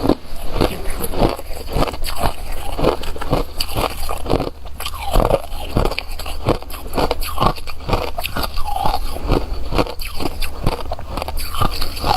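A person biting and chewing hard shaved ice and crushed ice: a continuous run of crisp crunches, about three or four a second.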